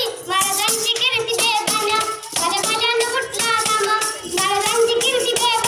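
A child's voice singing a Marathi povada (heroic ballad) in a loud declamatory style with long held notes. A small hand-held frame drum with jingles keeps a steady beat under the voice.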